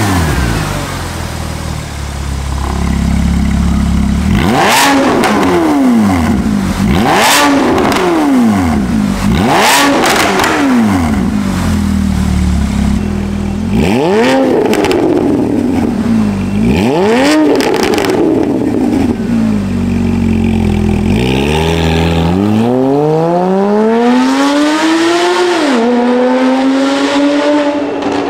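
Porsche 981 Cayman S 3.4-litre flat-six breathing through catless headers and a Fi Exhaust valvetronic catback. It is blipped about six times from idle, each rev rising sharply and falling straight back. Then comes one long acceleration whose pitch climbs, dips once near the end and climbs again.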